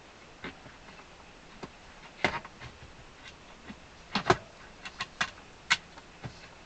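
Scattered sharp clicks and light knocks of accordion parts being handled during reassembly: reed blocks and their small screws, washers and nuts. The loudest are a single knock a little over two seconds in and a quick pair about four seconds in.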